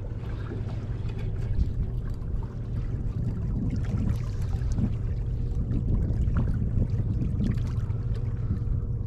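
Water lapping and slapping against the hull of a small boat over a steady low rumble, with scattered small knocks and a faint steady hum.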